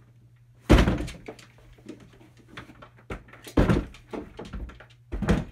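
Heavy hard-sided plastic cooler set down and shifted on a wooden workbench: three dull thumps, about a second in, near the middle and near the end, the first the loudest.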